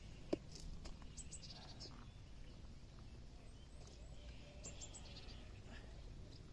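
Faint outdoor ambience: a few small birds chirping in short quick groups over a low wind rumble, with a single sharp click about a third of a second in.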